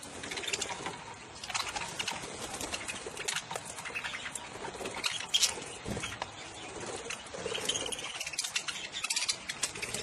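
Budgerigars chirping and chattering in a flock, with wings flapping as birds land on and take off from a feeding hand.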